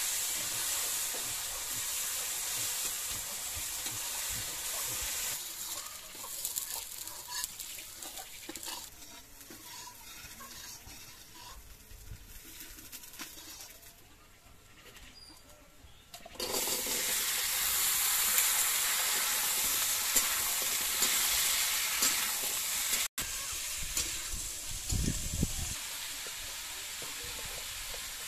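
Food sizzling in a metal kadai over a wood fire while a spatula stirs it. About sixteen seconds in, a louder, steadier sizzle cuts in abruptly, and a few seconds later it drops out for an instant.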